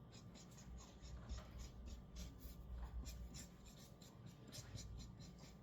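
Faint scratching of a felt marker tip on paper in quick, irregular colouring strokes, a few each second.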